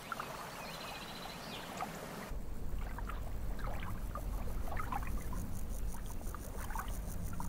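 Gentle pond-water ambience, lapping and trickling. A little over two seconds in, it changes abruptly to a deeper rumble with small scattered drips or bubbles.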